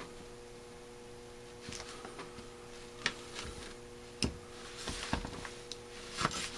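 Small metal-on-metal clicks and light scraping as a thin metal tool is worked in the bushing hole of a Marvel Schebler carburetor's throttle body and the part is handled, with a few sharper taps about three, four and six seconds in. A faint steady hum runs underneath.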